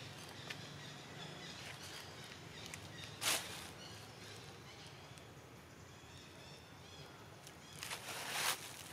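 Leafy tree branches rustling as a baby long-tailed macaque climbs through them, in two short bursts: one about three seconds in and a longer one near the end, over a faint outdoor background.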